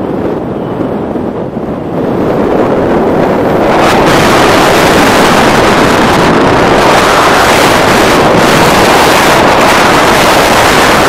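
Wind rushing over the microphone of a camera carried in paraglider flight: a loud, steady rush of noise that grows louder about two seconds in and again near four seconds.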